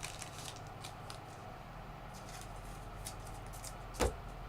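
Faint rustling and light clicks of trading cards being flipped through and handled, with one sharper knock about four seconds in.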